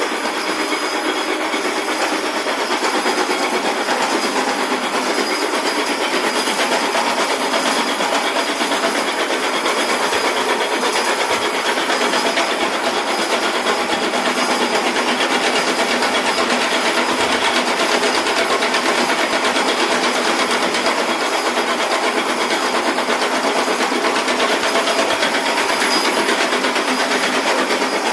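Milling machine cutting iron: a loud, steady cutting noise from the cutter on the metal, with no pauses.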